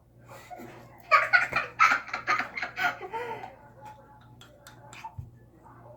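A child giggling in a quick run of bursts for about two seconds, followed by a few faint clicks.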